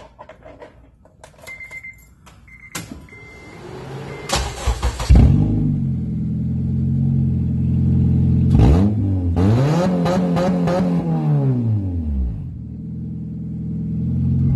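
A car engine breathing through a catless exhaust with no muffler (Tri-Y headers, test pipe, 3-inch piping) is cranked on the starter after a few short beeps and catches about five seconds in, then idles loudly. Past the middle it is revved once, the pitch rising and falling over about three seconds, before settling back to idle.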